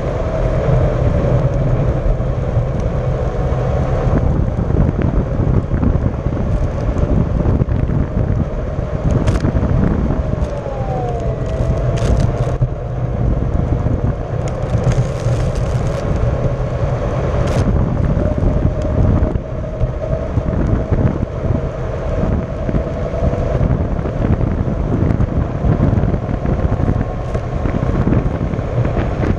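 Onewheel XR electric skateboard riding fast on asphalt: a steady tyre rumble and wind noise on the microphone, over a faint motor whine. The whine dips in pitch about ten seconds in, then climbs back as the board speeds up again. A few sharp clicks come through along the way.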